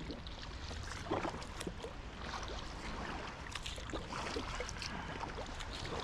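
Kayak paddling at sea: water splashing and dripping off the paddle and lapping at the hull in small irregular splashes, over a low steady rumble.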